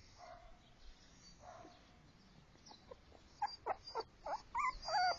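Puppy whimpering: after a few quiet seconds with a faint whine or two, a quick run of short, high-pitched whines starts about three seconds in and keeps going.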